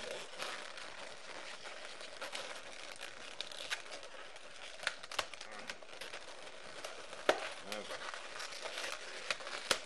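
Inflated 260 latex twisting balloons being twisted and handled: continuous rubbing and squeaking of latex, with a few sharp clicks, the loudest about seven seconds in and another near the end.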